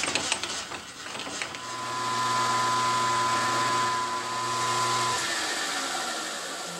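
Milling machine spindle running with a steady hum and whine while a 1/4-inch drill bit cuts a hole through an aluminium plate; the motor stops about five seconds in.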